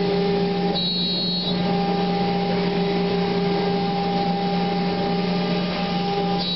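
C.R. Onsrud Panel Pro CNC router running with a steady machine hum. A brief high-pitched whine comes in about a second in and again at the very end.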